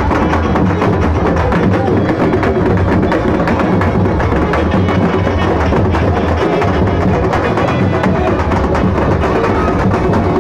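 Loud, fast, unbroken drumming from a festival drum band, the strokes packed densely with no pauses.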